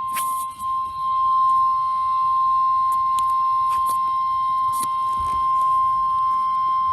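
NOAA Weather Radio warning alert tone: a single steady, high pure tone of about 1050 Hz from a Black & Decker Stormtracker WDR5B weather radio's speaker, signalling that a severe thunderstorm warning is about to be read. Faint crackles of static ride under it.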